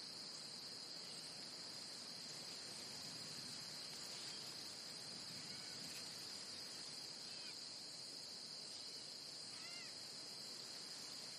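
Faint jungle ambience: a steady, high insect drone like crickets or cicadas, with a few short bird chirps from about halfway on.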